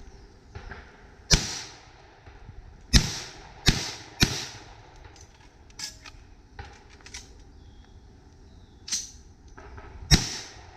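Gunshots: a single loud shot, then three in quick succession, a gap with a few fainter pops, and one more loud shot near the end.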